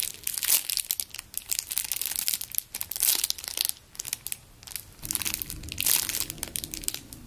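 Clear plastic bag crinkling and crackling irregularly as a squishy foam toy is squeezed and turned inside it.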